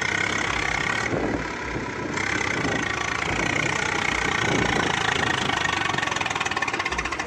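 Swaraj 855 FE tractor's three-cylinder diesel engine running with a steady, rapid firing beat as it pulls a trolley loaded with earth, dipping briefly about a second in.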